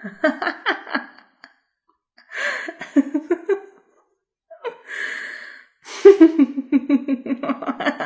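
A woman's staged evil laugh: three bouts of rapid 'ha-ha' pulses, each preceded by a sharp, audible intake of breath, the last bout near the end the longest and loudest, sliding down into a low cackle.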